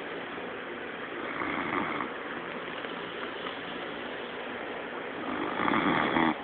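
A man snoring in his sleep while sleeping off a drinking binge: two snores about four seconds apart, the second louder and near the end.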